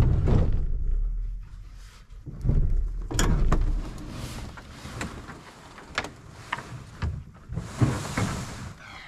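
Canoe hull being dragged off a pickup's tailgate and set down, with a run of hollow knocks and thumps and a long scrape near the end as it slides onto the ground.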